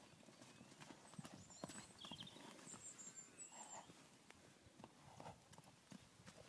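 Faint, dull hoofbeats of ponies trotting and walking over soft, muddy paddock ground.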